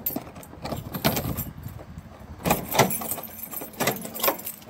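Keys jangling as a key is turned in a front door's lock, with several sharp metallic clicks of the lock.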